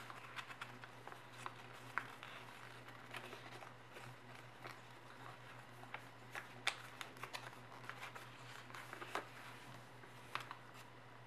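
A sheet of origami paper being folded and creased by hand: scattered faint rustles and crisp little crackles as the folds are pressed, over a steady low hum.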